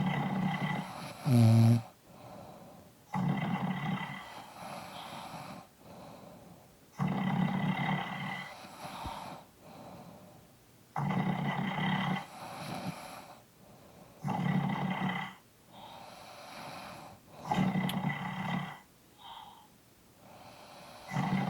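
Two people snoring at once: loud, rasping snores recur about every three and a half to four seconds, with quieter breathing between them. A short, pitched snort about a second and a half in is the loudest sound.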